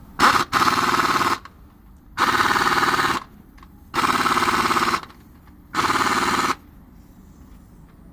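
Pneumatic impact wrench run in a brief blip and then four bursts of about a second each, hammering rapidly.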